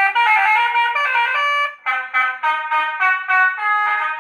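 Electronic basuri melody horn for a motorcycle playing a tune through a mini horn speaker (toa): a quick run of brass-like notes. After a short break about two seconds in, it plays faster, choppier notes.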